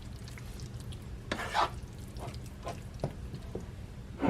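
Spoon stirring shredded chicken in a thin sauce in a pot: wet scraping and small clinks against the pot, with a longer scrape about a second and a half in and a sharper clink near the end.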